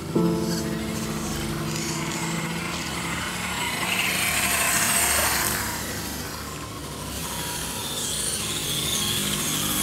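Scale RC crawler trucks' electric motors and gears whining as they drive through a shallow muddy stream, with tyres splashing water. The sound swells about four to five seconds in as one truck passes close, dips, then builds again as a second one approaches.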